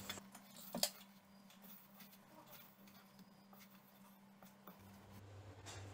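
Near silence: faint room tone with a low hum and one short click just under a second in.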